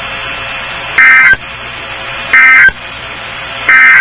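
Three short bursts of EAS end-of-message data tones, the SAME digital code sent as a harsh buzzy warble, each about a third of a second long and coming about every second and a third, over a steady hiss. The bursts mark the end of the emergency alert message.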